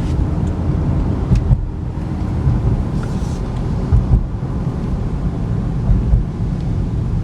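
2011 Cadillac CTS-V Coupe under way, heard from inside the cabin: a steady low rumble of engine and road noise, with a few short low thumps.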